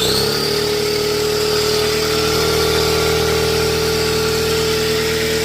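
Husky 26-gallon air compressor starting up: it spins up within a fraction of a second, then runs loud and steady with a strong hum.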